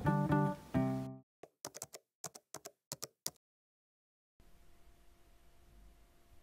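Background music cuts off about a second in. Then come about ten quick, light taps or clicks spread over two seconds, followed by faint room tone with a low hum.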